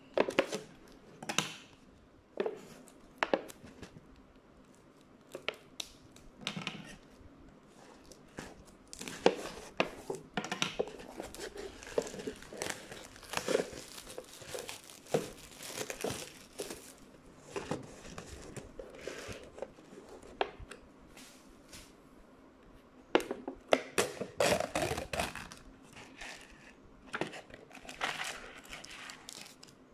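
Clear plastic film being torn and crumpled off a paper instant-noodle cup: irregular crinkling and crackling, with louder spells in the middle and again near the end.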